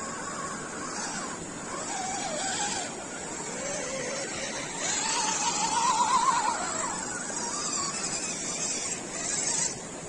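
Land Rover Defender 90 engine revving up and down off-road, its pitch rising and falling unevenly over a steady rushing noise, loudest about six seconds in.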